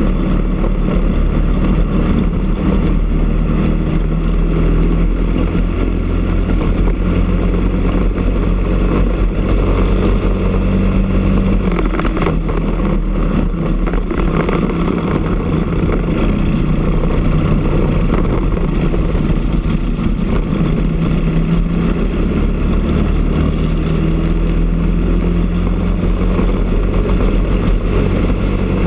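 Briggs & Stratton LO206 single-cylinder four-stroke kart engine running hard at race speed, heard from on board the kart. The engine note rises and falls with the throttle through corners and down the straights.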